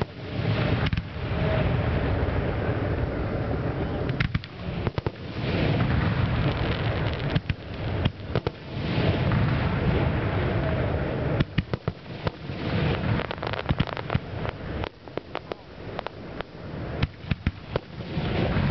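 Aerial fireworks shells bursting one after another in a continuous display, deep booms over a crackle. In the second half the bangs come in rapid clusters.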